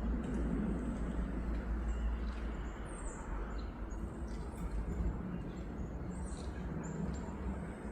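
Wind rumbling steadily on the microphone and in the trees, with a few faint high bird chirps now and then.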